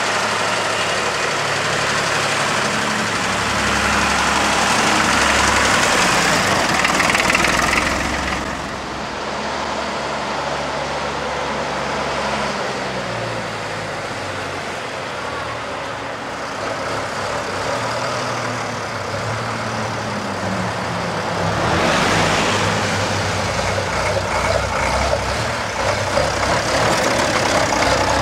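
Engines of classic tractors running as several of them drive past one after another, the engine note rising and falling as each goes by.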